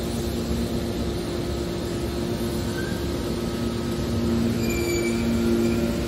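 Hydraulic scrap metal baler running: a steady mechanical drone with a low two-tone hum. About four and a half seconds in it grows a little louder and brief high squeals join it.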